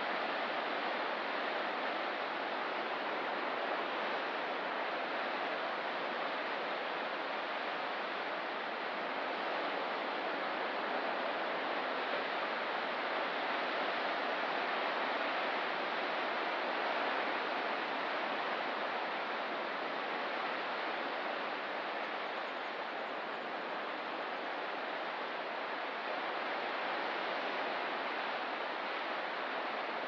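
Ocean surf as a steady, continuous wash, with no separate wave crashes, swelling slightly in loudness in the middle.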